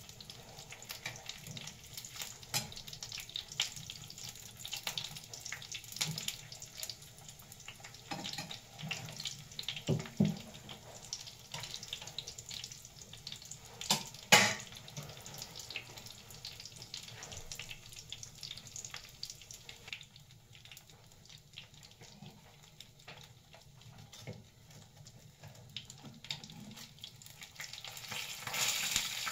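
Food frying in a pan on a gas burner: a steady sizzle with clicks and scrapes of metal tongs against the pan as the food is turned. The loudest knock comes about fourteen seconds in, and the sizzle grows louder near the end.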